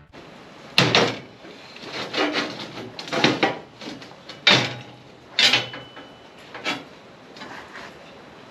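Steel pieces knocking and scraping against a steel welding table as flat steel slats are handled and fitted into a frame: a string of separate clanks and scrapes.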